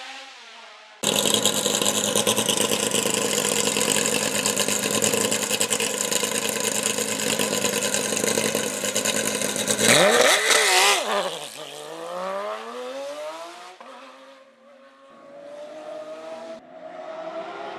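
Hill-climb race car engines at high revs. A loud, steady engine note cuts in suddenly about a second in and holds. Around the middle its revs swing sharply up and down through gear changes as the car goes by, then it fades, and another engine's revs rise and fall near the end.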